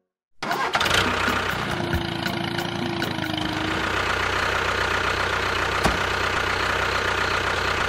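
An engine idling steadily with a low, even pulse, coming in abruptly about half a second in.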